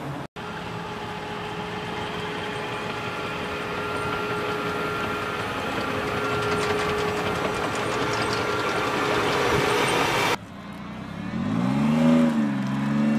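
Heavy military armoured vehicle running with a steady whine over its engine noise, growing slowly louder. About ten seconds in it cuts off abruptly, and a wheeled armoured vehicle's engine is heard revving up and down, its pitch rising and falling.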